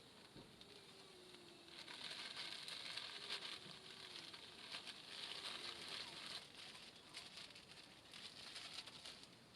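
Faint campfire crackling: scattered small pops over a soft hiss that swells and fades every few seconds.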